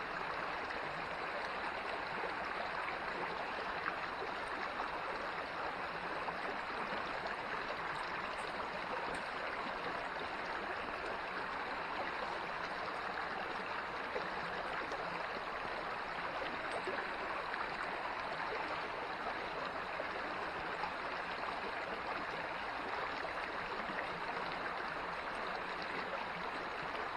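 Small creek water running steadily, an even rushing sound with no breaks.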